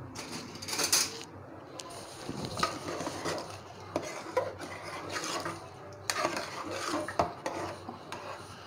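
A hand-held dal masher churning and mashing cooked spinach dal in an aluminium pressure-cooker pot. It makes irregular wet squelching and scraping strokes, with the occasional knock against the pot.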